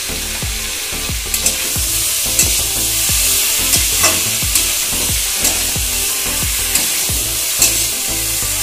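Raw mango slices sizzling in hot oil in a metal kadai, with a steady hiss, while a metal spatula stirs them, scraping and clicking against the pan at irregular intervals.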